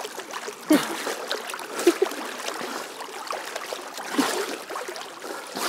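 Pool water splashing and sloshing as two swimmers struggle, one clinging to the other's back in a rear hold. The splashes come irregularly over a steady wash, with the strongest about a second in, around two seconds and around four seconds.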